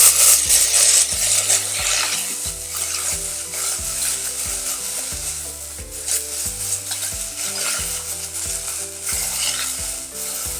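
Chopped spinach tipped into hot oil with fried onions in a pan, sizzling loudly at once and then sizzling on steadily as it is stirred.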